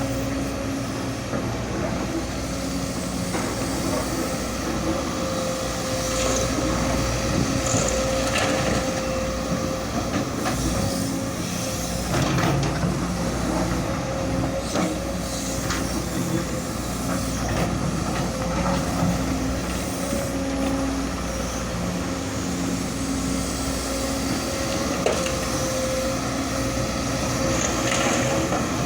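Heavy excavator running steadily, its engine and a steady whine holding level, with scattered knocks and scrapes from the machine at work.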